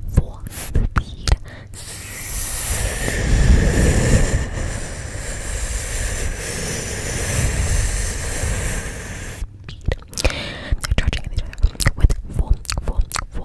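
ASMR mouth sounds made close to a microphone: rapid clicks and pops, giving way about two seconds in to a steady rushing hiss with a low rumble for about seven seconds, then rapid clicks again near the end.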